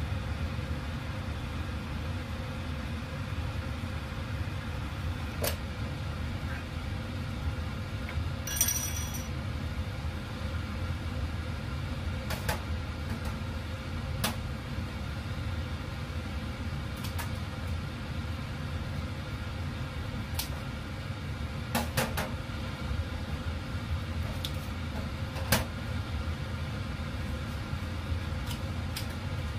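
Kitchen handling sounds: scattered light clicks and knocks as a carton, a packet and utensils are handled on a stainless-steel counter, one with a short bright clink a little over 8 s in, over a steady low hum.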